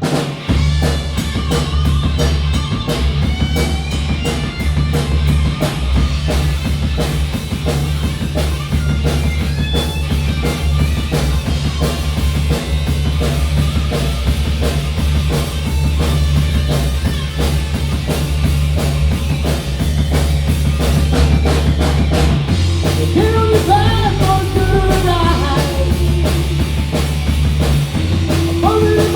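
Rock band playing live in rehearsal: a steady drum kit and bass with electric guitar. From about two-thirds of the way through, a pitched part slides up and down over the top.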